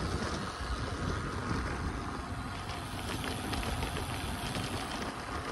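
Wind rushing and buffeting over the microphone, with tyre noise from a road bike rolling on tarmac, making a steady, noisy rumble.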